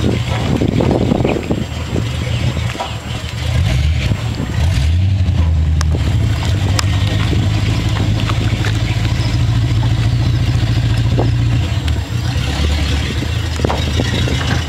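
Speedboat engine running, picking up revs about five seconds in, holding steady, then easing back near the end.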